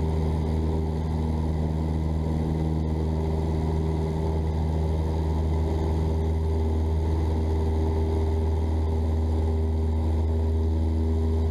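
Cessna 172's piston engine and propeller droning steadily at one even pitch, heard inside the cabin during the climb after takeoff.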